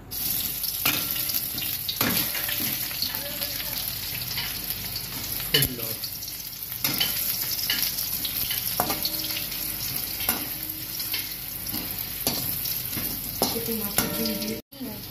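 Potato wedges sizzling in hot oil in a metal kadai, turned with a flat metal spatula that scrapes and knocks against the pan now and then.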